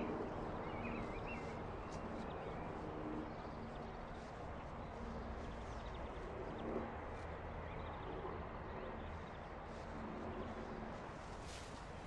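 Outdoor garden ambience: a steady soft hush, with a bird chirping faintly in the first couple of seconds and faint scattered footsteps on a garden path.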